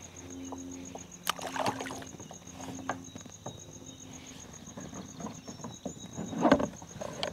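Handling sounds aboard a fishing kayak: scattered small knocks and clicks, with a louder thump near the end, over a faint low hum in the first few seconds.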